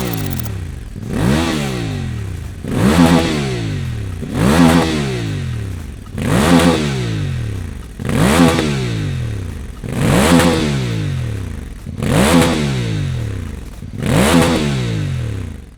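Voge DS 800 X Rally's parallel-twin engine through a Scorpion stainless slip-on exhaust, being revved in repeated throttle blips: eight sharp rises in pitch, each falling back toward idle, about every two seconds.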